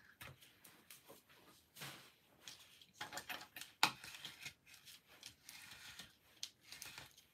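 Faint paper rustling and rubbing as a thin die-cut paper border strip is pressed and smoothed down by hand onto scrapbook paper, with scattered light taps and one sharper click nearly four seconds in.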